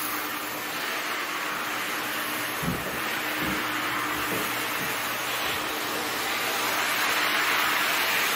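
Shop vacuum running steadily, its floor nozzle sucking loose paint flakes off a scraped epoxy flake floor, with a couple of short soft knocks about three seconds in.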